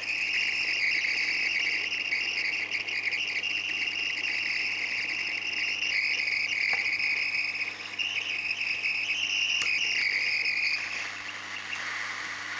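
Hot-air rework gun blowing a steady high-pitched hiss over the solder joints of a phone's SIM card reader pins to melt them for removal. The hiss drops to a fainter level about eleven seconds in.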